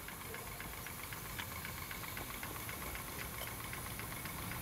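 1-inch-scale Minnie model steam traction engine running, its engine giving a steady run of small, even exhaust beats over a light hiss.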